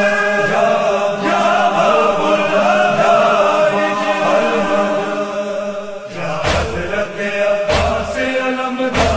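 Men chanting a devotional lament in a steady unison line. About six and a half seconds in, three heavy beats join it, roughly a second and a quarter apart.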